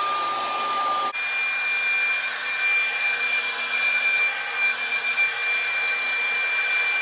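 Handheld blow dryer running steadily with a rushing airflow and a motor whine. About a second in, it switches abruptly to a higher setting and the whine jumps up in pitch, then holds steady while drying a layer of wig glue along the hairline.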